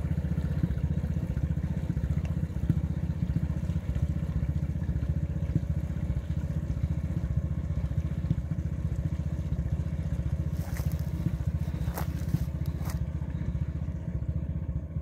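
An engine running steadily at constant speed, a low rapid drumming of exhaust beats, with a few short clicks in the last third.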